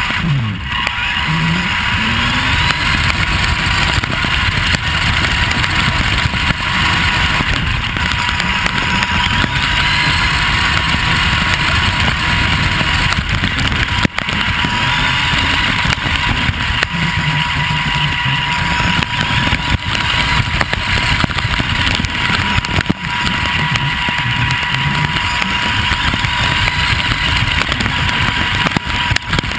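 Onboard sound of a Vaterra Twin Hammers electric RC truck driving over rough dirt and grass. The motor and drivetrain whine rises and falls again and again with the throttle, over a constant rattle and rumble from the chassis and tyres, with a thin steady high tone running underneath.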